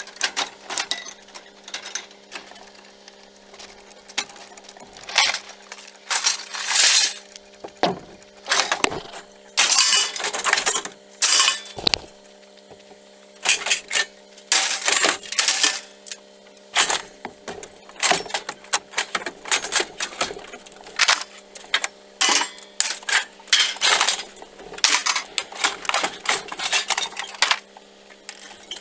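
Scrap sheet steel and appliance panels clanking and clattering irregularly as they are unloaded from a pickup truck bed, with a steady low hum underneath.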